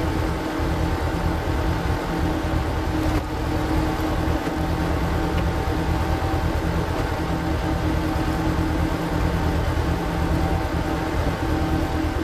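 Walking tractor's single-cylinder diesel engine running steadily, driving a screw-type log splitter, with a faint click or two.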